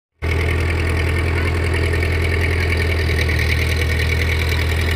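Powertrac Euro 55 tractor's diesel engine running steadily as it pulls an implement through the field: a deep, even drone with a higher whine above it. It cuts in abruptly just after the start.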